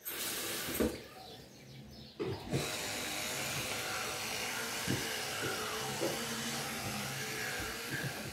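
Electric toothbrush switched on about two and a half seconds in and buzzing steadily while brushing teeth, with a few small knocks as it moves in the mouth. A brief hiss and a couple of knocks come before it starts.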